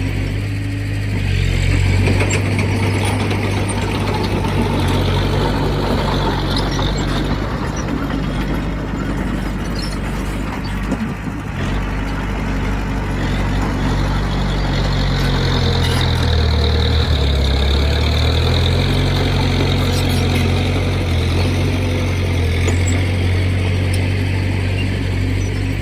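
Heavy diesel engine of earthmoving machinery running steadily, its pitch dipping for a couple of seconds about sixteen seconds in, with a few light metallic clinks.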